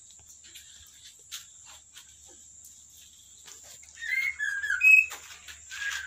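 Male white-rumped shama giving a few short whistled notes about four to five seconds in, after faint clicks and rustles; the male is courting the female.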